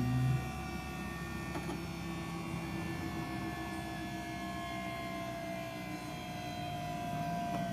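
The motor drive of a powered vehicle lifting piston running as the leg extends under a van, making a steady hum and whine that slowly falls in pitch. A louder low hum cuts off about half a second in.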